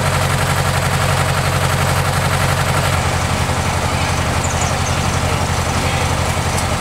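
Fire truck's engine idling, a steady low pulsing hum.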